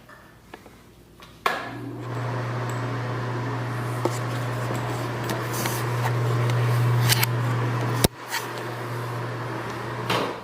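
A machine switches on with a click and runs with a steady low hum and rushing noise, then cuts off sharply about eight seconds in, leaving a fainter rush that fades away.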